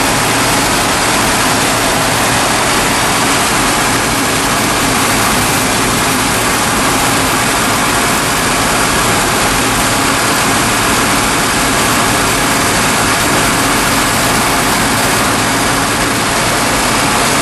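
Dodge Power Wagon's 360 cubic-inch V8 running steadily at idle under the hood, with a steady rushing hiss over it. The fuel flow to the carburetor has been shut off, so it is running on the last of its gasoline before it dies.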